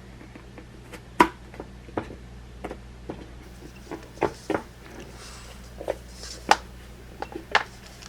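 Irregular sharp clicks and taps of plastic and metal parts being handled inside a Mac mini while its RAM is swapped, about a dozen in all, with a few louder snaps among them.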